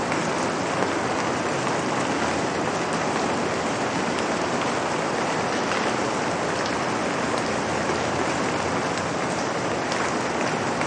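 Steady rain falling on a surface: a dense, even hiss with scattered faint drop ticks.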